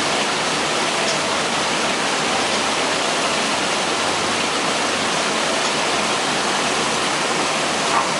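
Steady rush of a small waterfall splashing into a koi pond.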